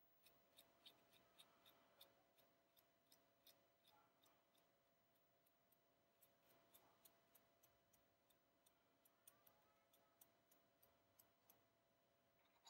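Near silence: faint room tone with light, quick ticks, about three a second, coming irregularly and in spells.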